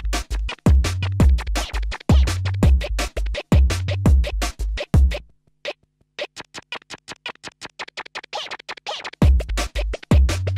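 Electronic music with a heavy kick drum and rapid, stuttering percussive hits. About five seconds in the bass and kick drop out, leaving a sparser run of quick ticking hits with a rising hiss near the eight-second mark, and the full beat comes back near the end.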